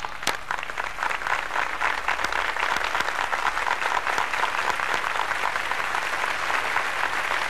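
An audience of children applauding: many hands clapping together. The applause swells over the first couple of seconds, then holds steady.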